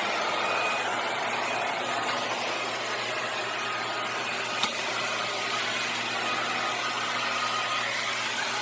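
Vacuum cleaner running steadily, a constant motor and airflow noise with a faint high whine. A single sharp click about four and a half seconds in.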